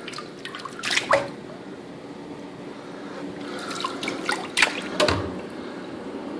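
Water dripping and splashing in a stainless steel sink, with a few sharp drips or knocks about a second in and again between four and five seconds in, over a steady low hum.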